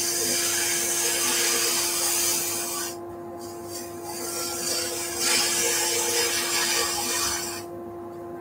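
Wood lathe spinning a wooden cylinder while a skew chisel takes planing cuts along it: a high rushing shaving sound in two passes, the first about three seconds long, then a short pause and a second pass that stops near the end, over the lathe's steady motor hum.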